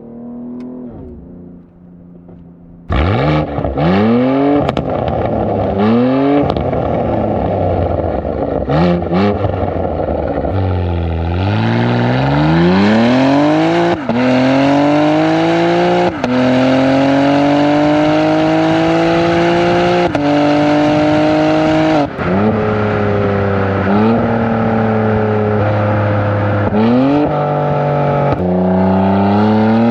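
BMW X3 M's S58 twin-turbo inline-six, breathing through an aftermarket valved exhaust, accelerating hard through the gears. About three seconds in it turns suddenly loud, and the pitch then climbs and drops sharply again and again at each upshift, with longer, slower climbs in the higher gears.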